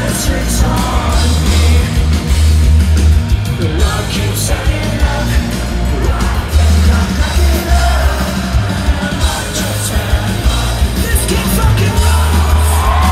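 Live punk rock band playing loud electric guitars, bass and drums, heard from within the audience, with voices yelling and singing along over the music.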